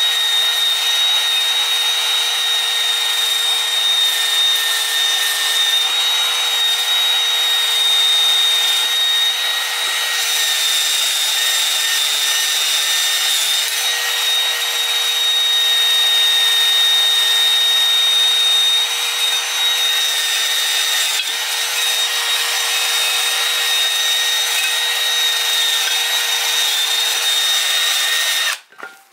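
Cordless drill spinning a small wire wheel brush against an aluminium engine case, scrubbing off old crud: a steady motor whine over the scratchy hiss of the wire bristles. It stops suddenly near the end.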